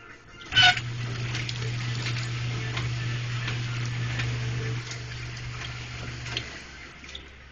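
Motorized garment conveyor running. A loud clunk about half a second in, then a steady low motor hum with hiss and light clicks along the rail, which stops shortly before the end.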